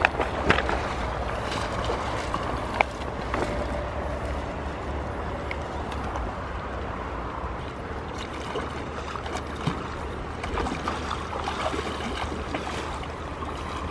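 A shallow river running over stones, with wind rumbling on the microphone and a few sharp clicks of stones underfoot.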